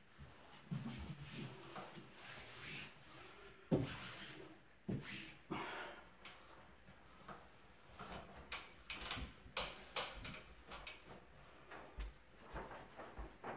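Handling sounds of self-adhesive wallpaper being pressed and smoothed onto a ceiling: paper rustling, with scattered light knocks and clicks and one sharper knock about four seconds in.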